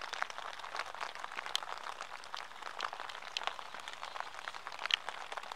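Dense, irregular pattering of water drops, with a few short high peeps about one and a half, three and a half and five seconds in.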